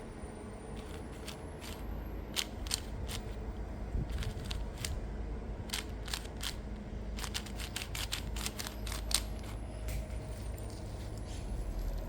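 Plastic layers of a new, non-magnetic 4x4 puzzle cube clicking as they are turned by hand, in uneven runs of sharp clicks. The cube is stiff and hard to turn. A low steady rumble lies underneath.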